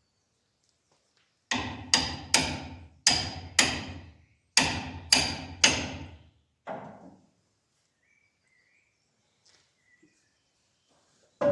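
A hammer strikes metal nine times in about five seconds, each blow ringing briefly and the last one fainter. This is typical of driving the joining pins home through a spreader drawbar.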